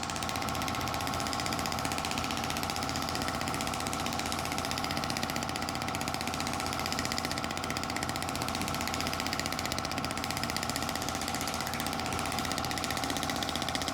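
Shockwave therapy device firing, a steady rapid pulsing as the applicator works over the muscles of the neck and upper back.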